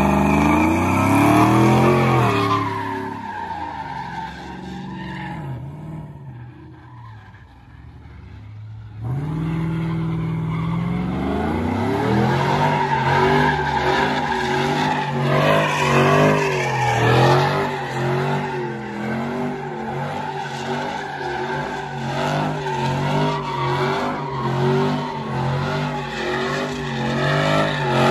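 Lowered Chevrolet Silverado pickup doing burnout donuts: the engine revs hard with its rear tyres squealing. The sound drops off for several seconds, then the engine revs back up and its pitch swings up and down about once a second as the truck circles.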